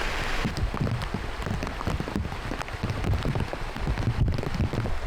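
Heavy rain pattering in scattered drops, over a low, uneven rumble.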